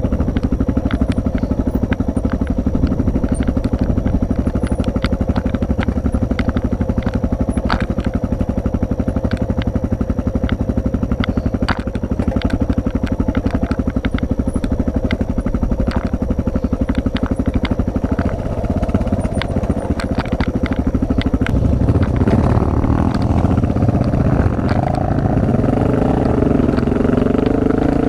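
Single-cylinder Honda trail bike engine running steadily under the rider on a rocky dirt track, with scattered clicks of stones and the bike knocking over rough ground. In the last several seconds the engine note shifts and rises as the throttle changes.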